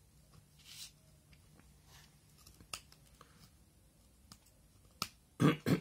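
A craft knife blade scratching faintly through paper as it cuts out small details, with a few light clicks. Near the end come two loud, sudden knocks from the paper sheet being handled.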